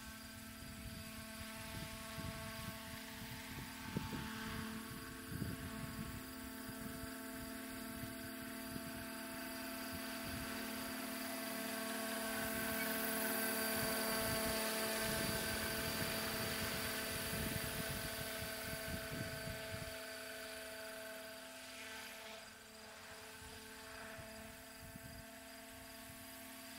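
Electric 700-size radio-controlled scale helicopter in flight, its Egodrift brushless motor and rotors giving a steady whine of several tones. It grows louder about halfway through and fades again.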